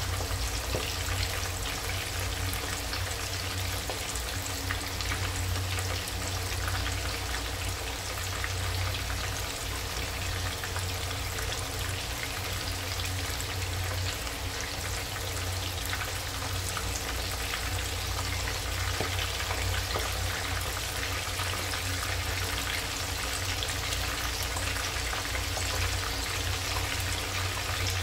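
Ikan parang (wolf herring) steaks frying in hot oil in a wok: steady sizzling with a dense, fine crackle, over a steady low rumble.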